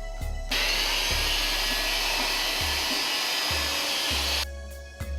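A steady rush of air from an electric blower-type tool, starting about half a second in and cutting off abruptly near the end, over background music.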